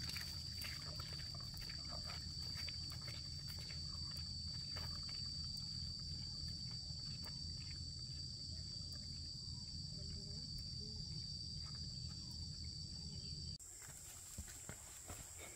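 Steady high-pitched insect drone with scattered faint clicks over a low rumble. The drone and rumble stop suddenly near the end, leaving a fainter high drone.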